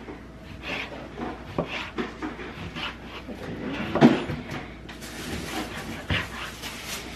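Chef's knife dicing raw chicken breast on a plastic cutting board: the blade knocks on the board about twice a second, with one louder thump about four seconds in.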